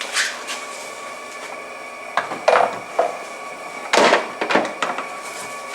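Plastic dashboard trim panels of a Tesla Model S knocking, rattling and clicking as they are handled and fitted back in place. The knocks are irregular, with the loudest clatters about two and a half and four seconds in, over a steady faint hum.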